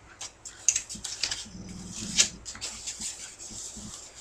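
Packaging handling noise as a DVD case is forced out of its tight-fitting box: irregular scraping and rustling with many small clicks, and two sharp knocks, about a second in and about two seconds in.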